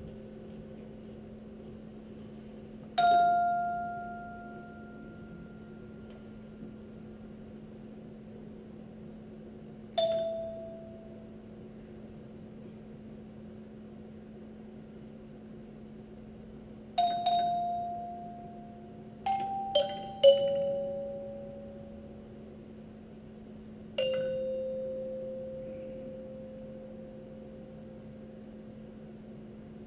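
Heliphon robotic glockenspiel striking single metal-bar notes, sparse and widely spaced, each ringing out and dying away over a few seconds. A quick group of three notes comes about twenty seconds in. A steady low hum runs underneath.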